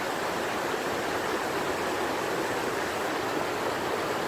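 Floodwater rushing across a road in a muddy torrent, a steady, unbroken rush of water.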